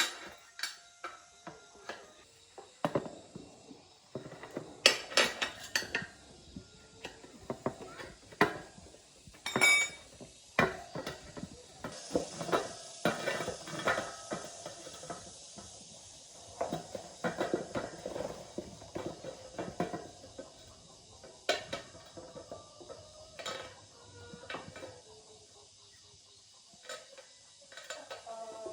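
Metal tools and parts clinking, tapping and knocking irregularly, some strikes ringing briefly, as in hand work on a motorbike wheel.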